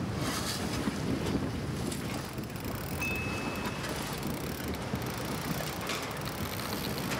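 Steady low outdoor rumble with no distinct events, the kind left by wind on the microphone or a distant motor. A thin high tone sounds for about a second, three seconds in.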